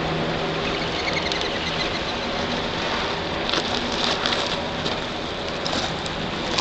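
River water lapping and trickling at the shoreline as a steady hiss, with a low steady hum underneath and a cluster of brief sharp ticks a few seconds in.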